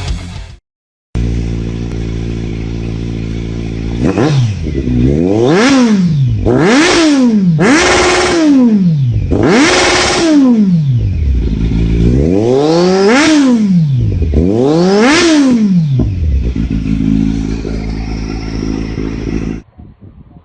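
Kawasaki Z900's inline-four engine idling, then revved in six quick blips that each rise and fall in pitch, before settling back to idle. The sound cuts off suddenly near the end.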